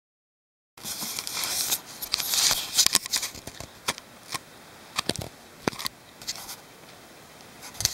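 Handling noise from a handheld camera being moved and turned around: scratchy rubbing and rustling against the microphone for the first couple of seconds, then scattered sharp clicks and taps.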